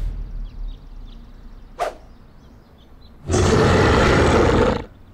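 Loud roar of a big red dinosaur, one roar of about a second and a half beginning a little past halfway. A brief sharp sound comes about two seconds in.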